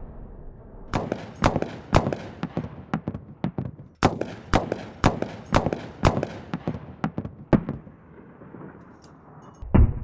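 Mk44 Bushmaster II 30 mm chain gun firing a string of single heavy shots, roughly two a second for about six seconds. After a short pause comes one louder, deeper boom near the end.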